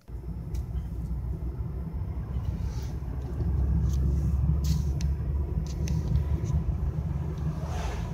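Low rumble of a car driving on the road, heard from inside the cabin. It starts abruptly, grows louder about three seconds in, and has a few faint clicks over it.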